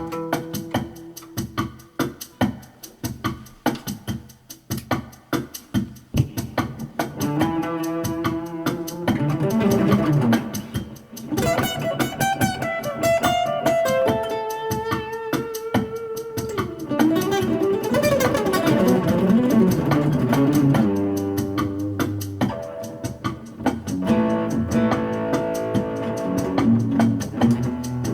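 Music with guitar and a steady beat, with a wavering melody carried on held notes from about seven seconds in.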